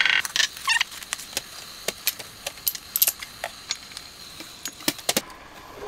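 Kitchen clatter: many light, irregular clicks and clinks of jars and containers being handled on the counter, over a low steady hiss from the lidded wok.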